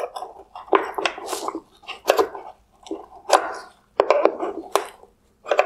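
Flat screwdriver prying at a wire harness connector in a plastic headlight housing: a string of irregular clicks, knocks and short scrapes of hard plastic.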